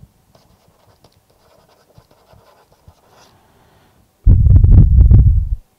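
Faint, irregular scratching of a stylus writing on a digital tablet, then a loud, low rumble lasting just over a second near the end.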